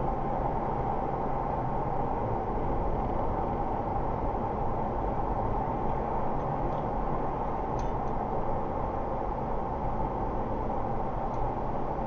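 Steady road and engine noise of a car driving, heard from inside the cabin.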